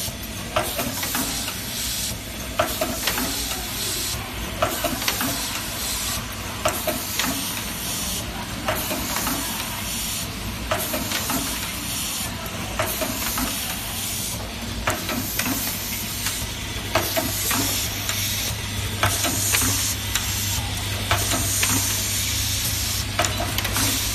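Automatic cap feeding and labeling machine running: a steady low hum with a continuous hissing rattle of plastic caps, the sound of a vibratory bowl feeder, and frequent sharp mechanical clicks.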